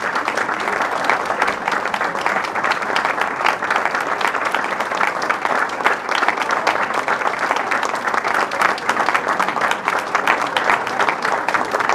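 An audience applauding steadily, with dense, continuous clapping from many hands.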